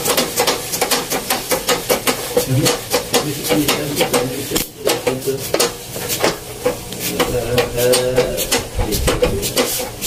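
Old treadle sewing machine running as its foot treadle is pumped: a fast, even clicking clatter, several clicks a second.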